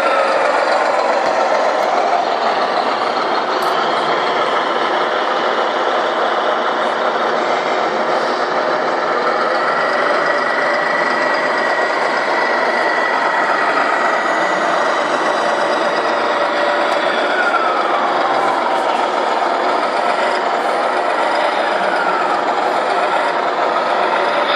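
RC model truck sound modules playing steady truck engine noise, with a falling whine several times as the simulated engine revs down.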